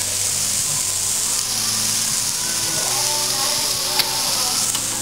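Food sizzling in a frying pan: a steady hiss that grows louder about one and a half seconds in and eases off near the end. A song plays underneath.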